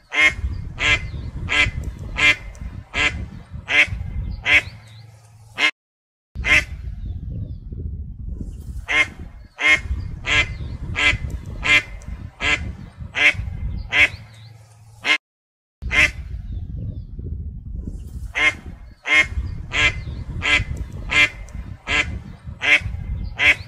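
Mallard hens quacking in a steady series of loud quacks, about two a second. There are three runs, each broken off by a brief silence.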